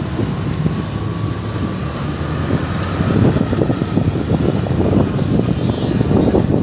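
Wind rumbling on the microphone while riding along a road, with road and vehicle noise mixed in.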